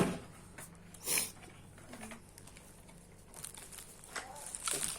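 Plastic parts of a baby walker being handled and pressed together during assembly: a sharp click at the start, a short rustle about a second in, then soft knocks and rustling near the end.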